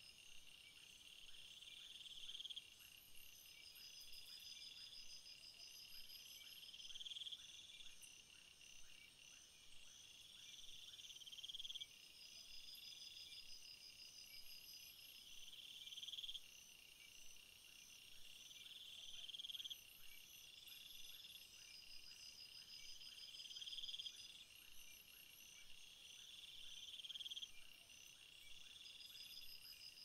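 Faint chorus of crickets chirping in steady pulsed trills, with a louder trill that swells and breaks off about every four seconds.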